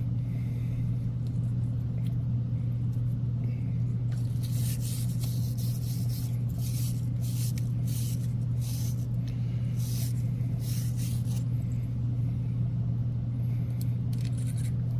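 Repeated short scrapes and rubs of hands and a tool on metal pipe fittings as a water heater's water-line union nuts are fitted and tightened, over a steady low hum.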